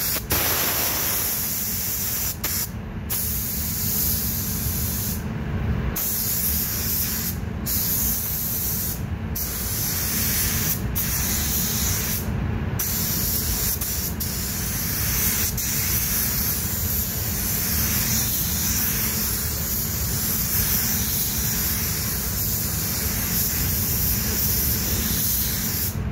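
Gravity-feed spray gun hissing as it sprays white ground-coat paint onto a car panel, the white base under a pearl tri-coat. The steady air hiss stops briefly several times as the trigger is let off between passes, over a steady low rumble.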